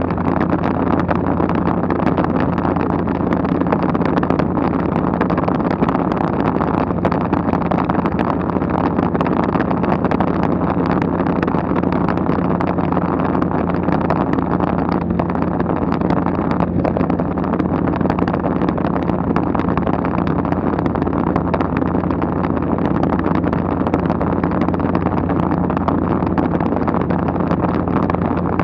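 Steady drone of a light aircraft in flight, heard from inside the cabin: a low engine hum made of a few steady tones over a rush of air.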